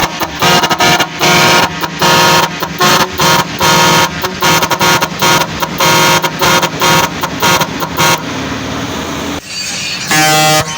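Truck horn sounded in a rapid string of short toots for about eight seconds. After a brief steadier rumble there is one last loud blast near the end.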